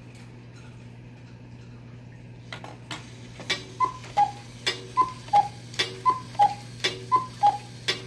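Vintage Schmeckenbecher cuckoo clock striking: after a few clicks of the works, the cuckoo calls four times, about once a second, each call a higher note falling to a lower one with a sharp strike on each.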